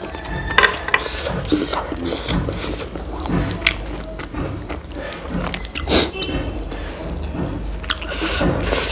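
Close-miked eating sounds: irregular clicks and knocks of chopsticks and hands at the plate, with crisp lettuce leaves rustling as they are picked up and folded into a wrap, and some chewing.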